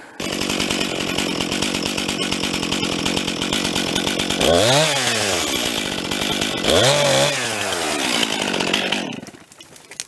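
Two-stroke chainsaw idling, revved up and back down twice about halfway through, then stopping near the end.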